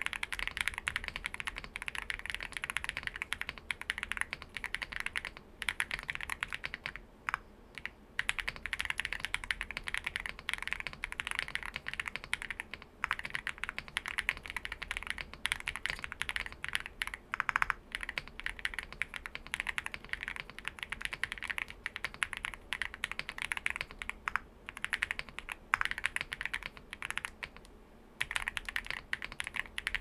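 Steady typing on a Leobog Hi75 mechanical keyboard fitted with "Cowbell" frankenswitches: Holy Panda stems in Zifriend Panda Silent housings. A dense run of key clacks, broken by a few brief pauses.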